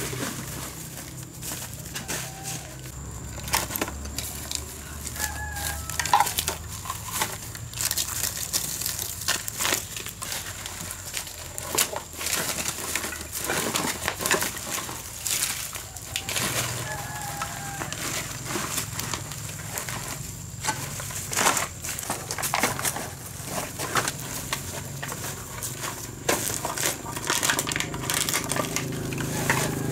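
Dry leaves and litter crackling and crunching underfoot, mixed with the rustle of a plastic sack being handled: a steady run of irregular sharp crackles.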